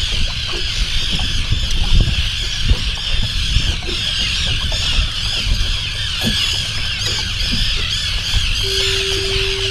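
A large flock of seabirds calling over the water, many short high calls overlapping without a break, over a low rumble. A steady tone comes in about a second before the end.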